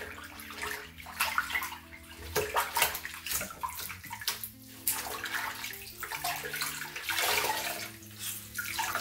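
Water sloshing and splashing in a bathroom sink basin as a wet cloth is swished and scrubbed through it, in irregular swishes. Near the end the soaked cloth is squeezed out over the basin.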